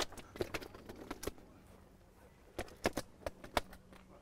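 Irregular sharp clicks and taps from a catch of fish being weighed in a sling hanging from a digital scale: a flurry in the first second or so, a lull, then another flurry.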